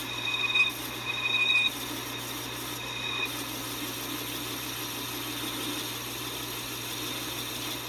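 Metal lathe turning a home-cast piston while a custom-ground high-speed-steel cutter plunges straight in to cut a ring groove, lubricated with Tap Magic cutting fluid. A high squeal comes and goes in the cut for about the first three seconds, then the lathe settles into a steady hum.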